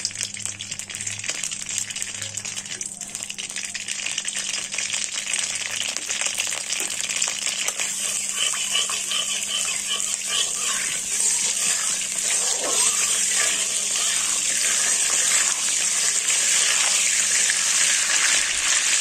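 Melted butter and oil sizzling in a hot kadai, the sizzle growing steadily louder as the fat comes up to heat, with a steel spatula stirring through it.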